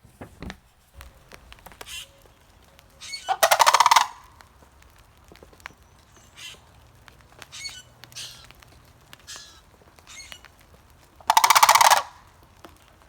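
Sandhill crane giving its loud rolling, rattling call twice, about eight seconds apart, with fainter short calls between.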